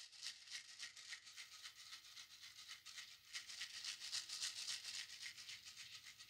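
Faint shaker-like percussion in a quick, even rhythm over a soft held low note, slowly getting louder: the quiet opening of a background music track.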